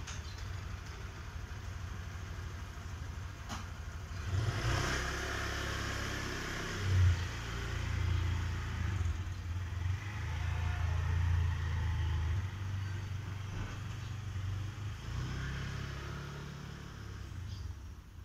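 Motor vehicle engine rumbling close by on the road, swelling louder about four seconds in and then running on as a low rumble.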